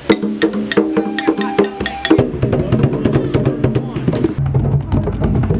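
Background music: a percussive melody with evenly spaced, wood-block-like strikes. About two seconds in it changes to a denser passage with a low bass line.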